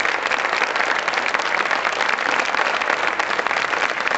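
Audience applauding: many hands clapping steadily at the end of a line dance performance.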